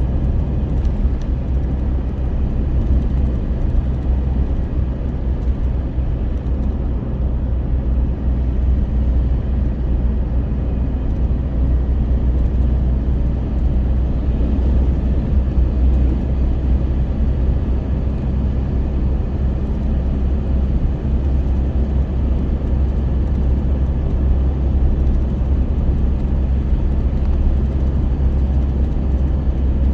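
Steady low engine drone with a constant hum that does not change in pitch or level, as of a motor vehicle running.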